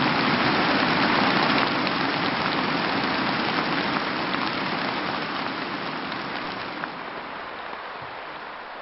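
Sustained applause from a large audience, loudest near the start and slowly dying away.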